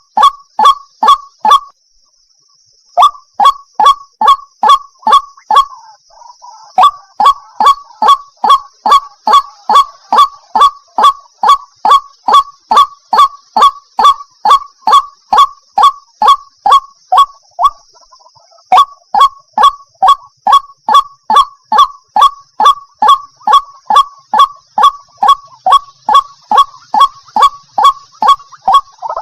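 White-breasted waterhen giving its repeated 'ruak-ruak' call, about two and a half harsh notes a second. The call is used as a hunting lure, a female calling a male. The notes break off briefly about two seconds in and falter again near eighteen seconds, over a steady high hiss.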